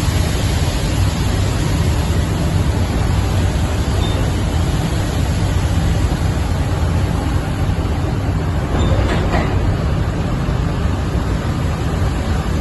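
Combine harvester running steadily at a constant loud level, a dense mechanical noise with a strong low rumble.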